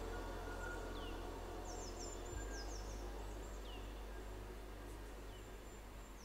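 A quiet ambient meditation soundscape: a low steady drone with short high chirps every couple of seconds, like distant birds. The whole stays soft and slowly fades.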